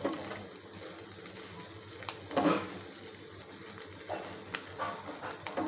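Corn kernels frying in oil in a pan with a steady low sizzle, a spatula stirring them and knocking against the pan a few times. A brief louder sound comes about halfway through.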